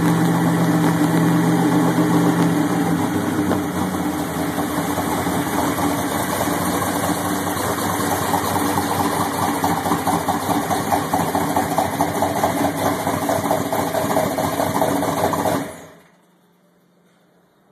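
A 1969 Ford's 429 big-block V8 is running steadily at idle through custom headers and Flowmaster mufflers. Near the end it cuts out suddenly and goes quiet, because the battery has shaken loose and disconnected from the vibration.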